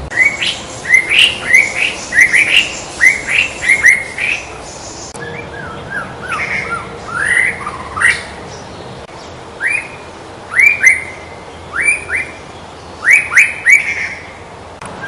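White-rumped shama (murai batu) singing: quick phrases of clear whistled notes sweeping up and down, in bursts with short pauses between them.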